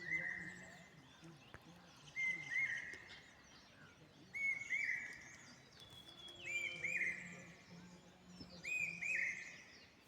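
Bird song: one bird repeats the same phrase five times, about every two seconds, each a couple of quick looping notes running into a held whistle. Other birds chirp higher and fainter in between.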